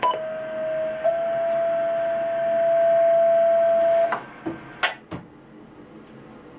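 A steady electronic tone held for about four seconds, stepping slightly up in pitch about a second in and then cutting off, followed by a few sharp clicks.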